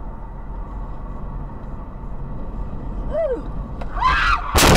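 Steady road and engine noise from inside a moving car. Near the end, squealing like tyres skidding, then a sudden loud bang like a collision.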